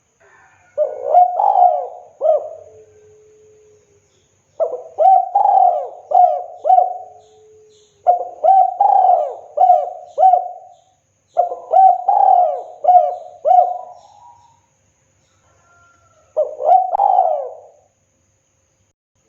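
Spotted dove (tekukur) cooing: five phrases of quick, repeated low coo notes, each phrase lasting one to three seconds, with short pauses between them.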